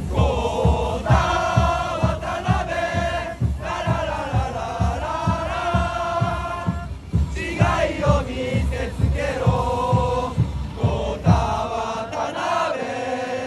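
Football supporters' section singing a player chant in unison, a sung 'la-la-la' line led by many male voices, over a steady beat.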